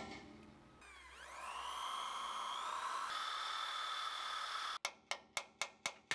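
Power drill spinning up with a rising whine and running steadily as its bit drills out a snapped bolt in steel, the pitch stepping up slightly about three seconds in. Near the end the steady run stops and is followed by a quick series of five or six short sharp bursts.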